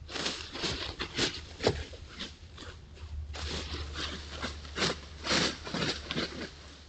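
Dry leaf litter rustling and crunching in irregular bursts as coyotes walk and nose about right in front of the trail camera, over a steady low hum.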